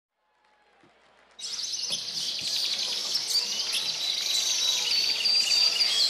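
A chorus of many small birds chirping and twittering in quick, overlapping high calls. It starts abruptly about a second and a half in, after near silence, and grows slightly louder.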